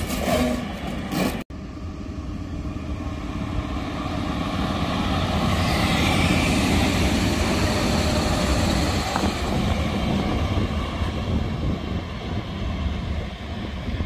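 EP07 electric locomotive pulling away and running past close by, a steady rumble of motor and wheels on rail. It builds to its loudest about seven seconds in, then eases, with a brief cut in the sound about a second and a half in.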